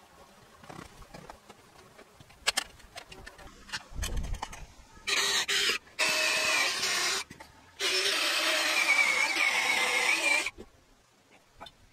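Cordless drill boring into a wooden roof beam, running in three bursts of a few seconds each with short pauses, a wavering motor whine under the noise of the bit cutting wood. A few light knocks and a dull thump come before it.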